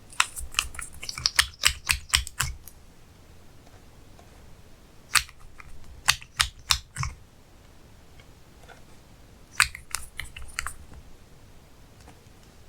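Slime being pressed and poked by hand, giving sharp clicks and pops in three quick runs, the first and longest just after the start, another about five seconds in and a shorter one near ten seconds.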